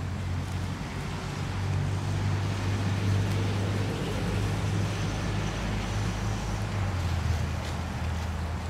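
Steady low hum of a vehicle engine running, over an even background hiss.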